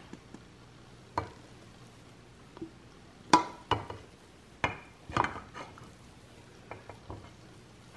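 Spatula scraping thick chocolate batter out of a stainless steel mixing bowl into a baking dish, with a series of sharp knocks and clinks as the spatula and bowl hit the bowl's side and the dish. The knocks come in a cluster from about three to six seconds in.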